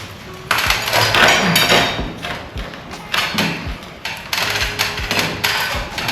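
Hammer blows on a wooden floor joist, knocking it into place: a series of irregular knocks and thuds.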